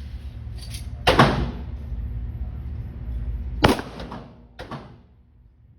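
Pistol shots at an indoor range: two loud reports about a second in and near four seconds in, each followed by a short ringing echo. Fainter single shots come at the start, just under a second in and between four and five seconds in.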